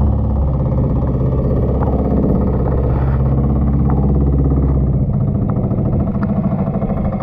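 Small boat's engine running steadily under way; its note shifts about five seconds in.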